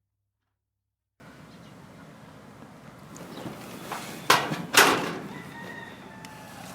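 Dead silence, then about a second in the audio cuts in on farmyard chickens: two loud short squawks in the middle, with faint crowing-like calls after.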